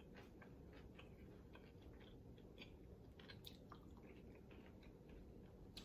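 Faint mouth sounds of chewing fried chicken wings, with small scattered clicks and crackles from the crispy meat being torn and chewed.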